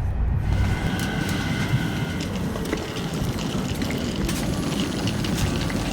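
Steady low rumble of a moving vehicle, with a faint steady whine from about half a second to two seconds in and scattered light clicks.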